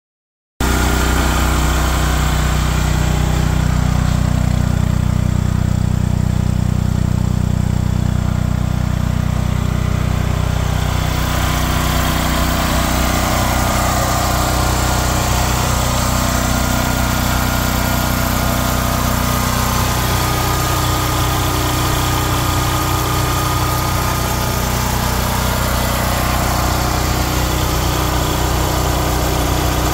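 Portable generator engine running steadily, its exhaust piped through a flexible metal hose to a through-wall muffler. A higher hiss joins the engine about eleven seconds in.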